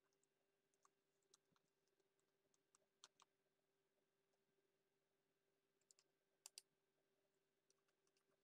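Faint, scattered clicks of a computer keyboard and mouse over a low steady hum, with a few louder clicks about three seconds in and a quick pair about six and a half seconds in.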